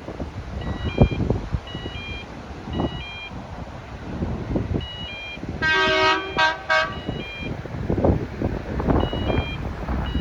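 A horn sounded in a few short, quick blasts about six seconds in, over a two-note electronic warning beep that repeats about once a second. Gusty wind buffets the microphone throughout.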